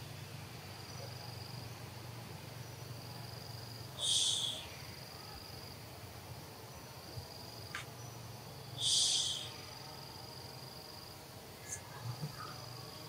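Forest insect chorus: a short, high-pitched buzz repeats about every five seconds, over a thin, steady, high insect trill that comes and goes and a low hum. A few faint clicks come near the end.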